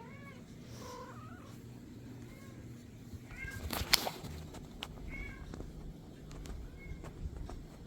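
Himalayan kittens mewing, several short high mews spread through a few seconds, with a sharp click about four seconds in.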